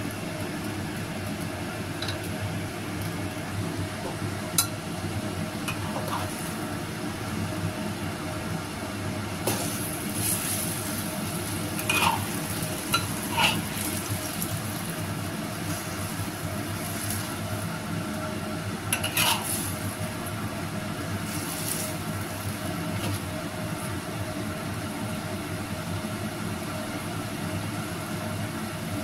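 Metal spatula tossing noodles in a wok: a few sharp clinks against the pan with stretches of sizzling, over a steady low hum.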